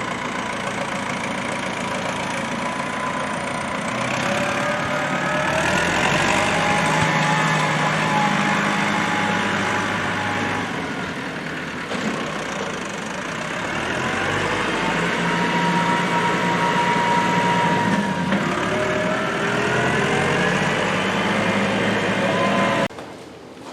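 Farm tractor engine running and revving up three times, holding the higher speed for several seconds each time before easing back. It cuts off abruptly near the end.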